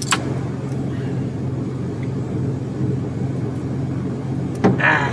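Engine of an old four-wheel-drive vehicle running steadily, heard from inside the cab as a low, even drone. A sharp click right at the start, and a short rustle near the end.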